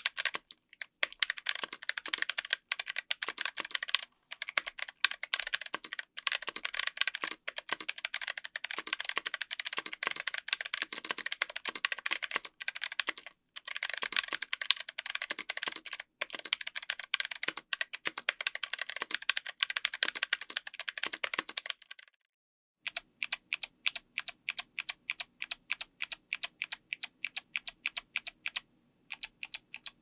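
Kailh BOX Summer clicky switches on an FR4 plate in an aluminium-cased 60% keyboard with MT3 PBT keycaps, typed on quickly: a dense patter of light clicky keystrokes. After a short pause about two-thirds of the way in, single keys are pressed one at a time in an even rhythm of about three to four strokes a second.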